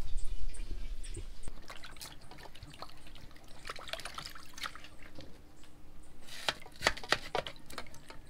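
Water splashing and dripping in a metal pot as a peeled root vegetable is handled and cut in it, in scattered short splashes and clicks that come thickest near the end.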